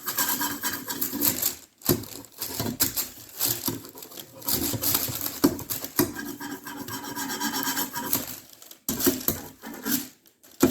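Scissors rubbed along the rim of an upturned cake pan through parchment paper, a scraping, rasping sound in several stretches with short breaks between them, pressing the pan's outline into the paper.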